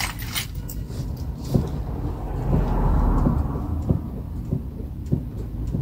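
Low rumble inside a campervan cab, swelling about halfway through, with a few faint knocks.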